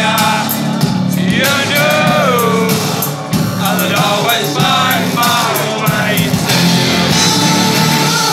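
Live rock band with synthesizers, guitar and drums playing loudly, with a male singer's vocal line over it. The singing stops about six seconds in and the synth-led instrumental carries on with steady held notes.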